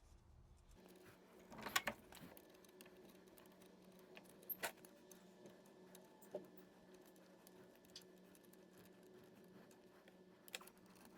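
Faint, scattered light clicks and clinks of tools or parts being handled, four or five in all, over a low steady hum.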